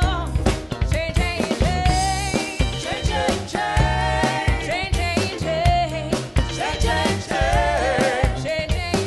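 Live band playing a soul-funk groove: a drum kit keeps a steady beat under bass and bending melodic lead lines.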